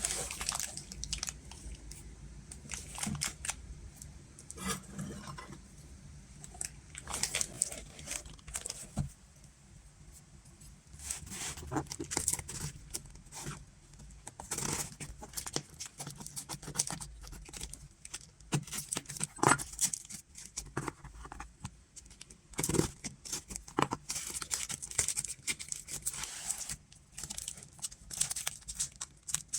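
Vinyl record packaging being torn open and handled: irregular tearing and crinkling with scattered clicks and knocks.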